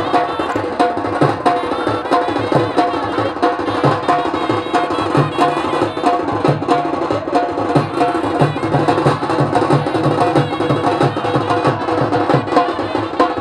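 Traditional drums beating a fast, steady rhythm, with a repeating melody over them.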